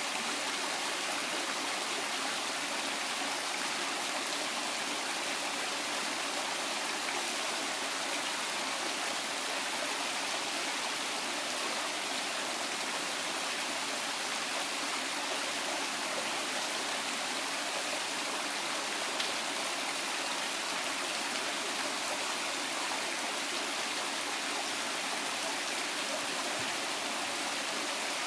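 Waterfall: falling water splashing in a steady, unbroken rush.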